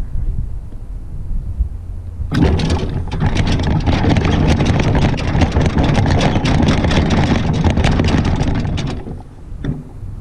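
Riding lawn tractor being towed across a bumpy lawn: a dense clattering rattle of its body and a rumble of its tyres on the grass start about two seconds in and die away about a second before the end.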